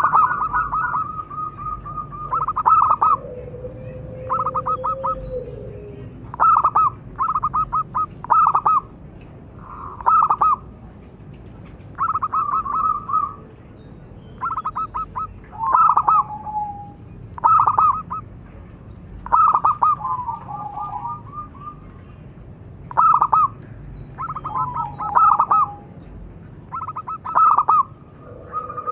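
Zebra dove (perkutut) singing its cooing song: short bursts of rapid stuttering coos repeated every second or two, with a lower, longer note about four seconds in.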